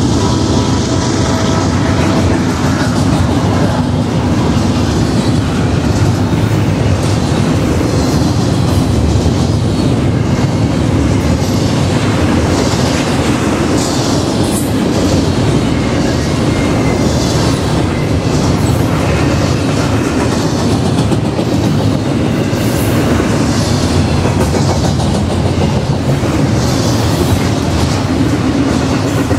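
Double-stack intermodal container train rolling past: a steady, loud rumble of steel wheels on rail, with repeated clicks from the wheels running over the track. A faint ringing tone fades out in the first couple of seconds.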